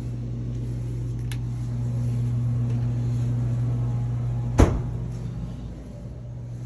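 A steady low hum of a running machine or appliance. A faint click comes about a second in, and a single sharp knock about four and a half seconds in, like a door or cupboard being bumped.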